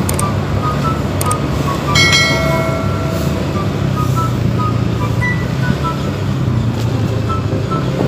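Motorcycle engine running steadily while riding along a street. About two seconds in there is a brief high tone lasting about a second, and faint short beeps are scattered throughout.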